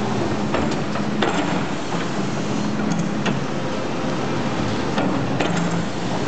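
Doosan crawler excavator's diesel engine running steadily under load as the bucket digs into soil, with several sharp knocks and clanks from the working bucket and arm.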